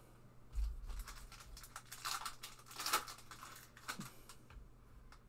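Clear plastic wrapper crinkling in irregular crackles as hands handle it, with a soft bump about half a second in.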